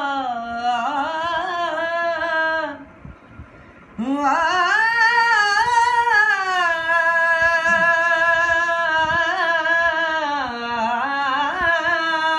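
A man sings a qaseeda unaccompanied, drawing out long held notes that bend slowly up and down. His voice breaks off briefly about three seconds in, then he holds one long note for most of the rest.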